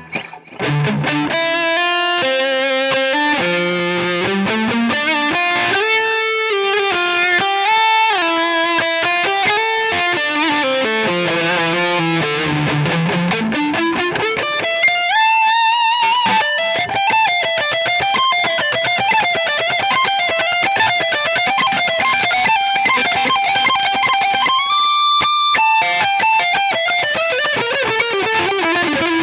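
Jackson Performer PS-2 electric guitar played through a Guitar Rig 5 distortion patch: a fast single-note lead melody. About halfway the line climbs quickly to a high note, and near the end one high note is held for about a second.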